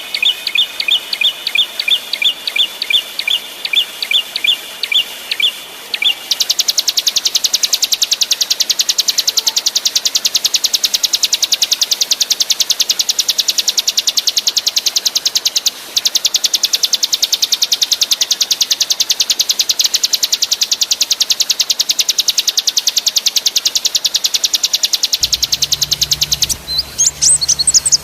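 Small songbird song for bird-tutoring: a run of sharp high notes about three a second, then a long, very fast, even rattling trill (a 'roll'), ending with quick rising whistled notes.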